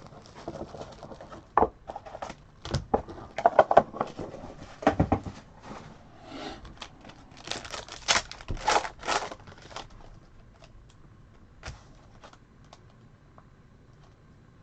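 Packaging of a trading-card hobby box being torn open and crinkled, with clicks and taps of handling. Busy for about the first ten seconds, then only a few scattered ticks.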